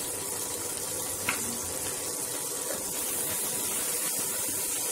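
Onion and tomato masala sizzling steadily in hot oil in a kadai as ground cumin goes in, with one short click about a second in.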